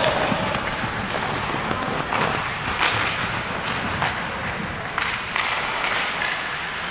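Ice hockey play: several sharp knocks and cracks of sticks and puck against the boards and ice, spaced irregularly over steady rink noise.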